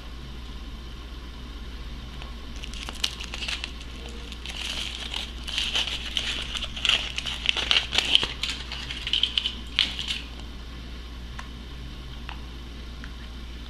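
Crinkling and crackling of a Kinder Surprise egg's foil wrapper being handled and peeled off. It starts about three seconds in and dies away about ten seconds in.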